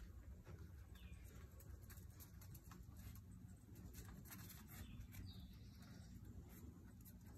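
Near silence: faint outdoor ambience with a few faint, brief high-pitched calls and soft clicks.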